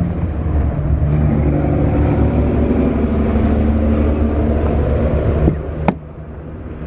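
Steady low rumble of a running vehicle engine. Near the end it is cut by a click and then a sharp click, and the rumble drops noticeably after them.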